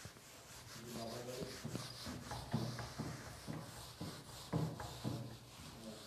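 Whiteboard being wiped with a hand-held duster: a series of rubbing strokes across the board, with two sharper knocks about two and a half and four and a half seconds in.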